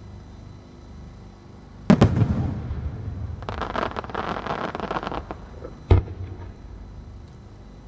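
An aerial firework shell bursts with a loud boom about two seconds in, followed by a low rumbling echo. For about two seconds its stars crackle densely, and a second sharp bang comes near six seconds.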